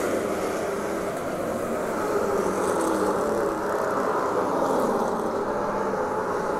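Race car engines running at speed around a short-track oval, their pitch rising and falling slightly.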